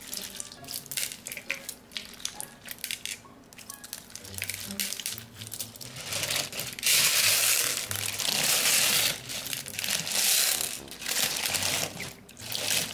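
Plastic pony beads clicking and rattling as hands knead them into putty slime in a glass bowl. From about six seconds in comes a louder, dense crunching and squishing as the bead-packed slime is pressed down, in several pushes.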